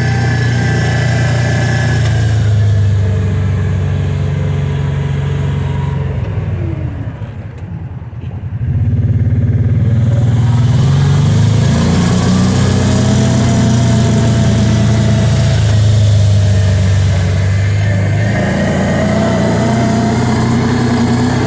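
Kawasaki Teryx side-by-side's V-twin engine running under way. The engine eases off and goes quieter for a couple of seconds about six and a half seconds in, then picks up again with a rising note and runs steady.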